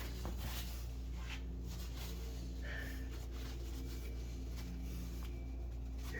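Steady low hum of a small room, with a few faint soft taps and rustles.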